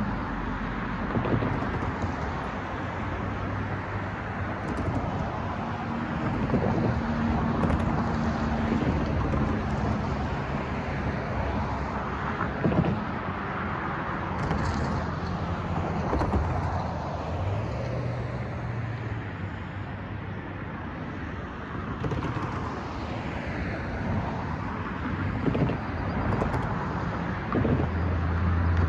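Road traffic passing over a railroad crossing: car and pickup engines and tyres rise and fade one after another, with a few short thumps.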